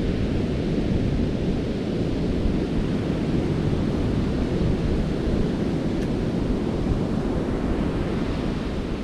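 Steady low rumble of wind on the microphone, mixed with the wash of surf breaking on the beach.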